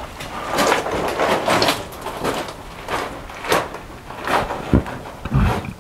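Footsteps scuffing and crunching on a gravelly rock floor, with rustling close to the microphone and a couple of low thumps near the end.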